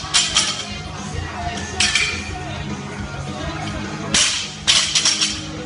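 Barbell with rubber bumper plates clanking and thudding against the gym floor in several short, sharp bursts, a pair just after the start and a cluster of them near the end, over background music.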